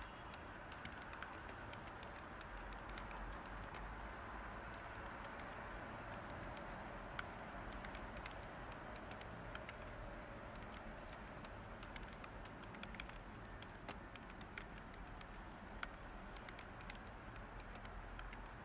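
Light typing on a computer keyboard, irregular soft key clicks over a steady white-noise hiss.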